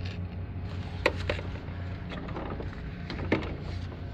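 Two sharp knocks, about a second in and a little past three seconds in, with a few lighter taps, as a cast metal riser roof flashing is handled and pressed into place on asphalt shingles. A steady low hum runs underneath.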